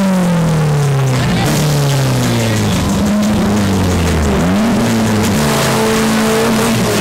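Suzuki Samurai engine revving hard and unevenly: its pitch slides down over the first couple of seconds, then climbs and drops several times during a burnout.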